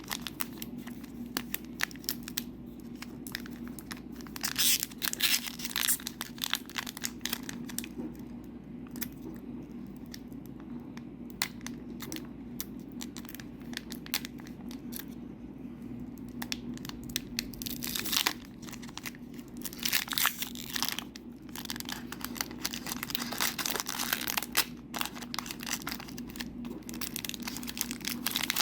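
Foil booster-pack wrapper crinkling and being torn open by hand, in irregular bursts of crackling, over a faint steady low hum.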